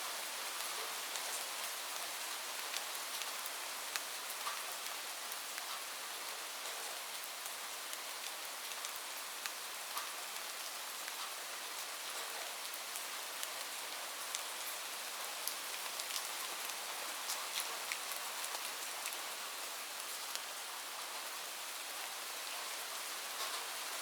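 Steady light rain: an even hiss with many separate drops ticking sharply on a surface.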